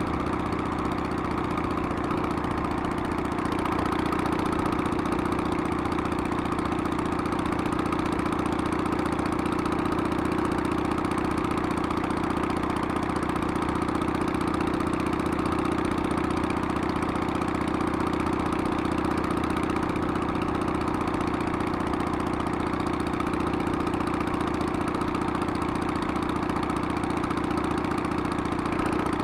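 Harley-Davidson Sportster's air-cooled V-twin engine running steadily at an even note.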